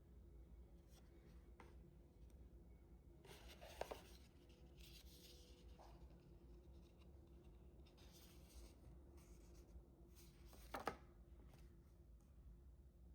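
Faint rustling and rubbing of watch packaging being handled, with two short knocks, one a few seconds in and a louder one near the end.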